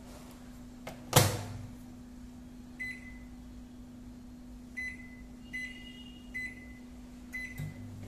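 Samsung microwave oven door latching shut with a click and a loud thud about a second in, followed by five short keypad beeps as the power and time are set. Near the end the oven starts running with a low hum.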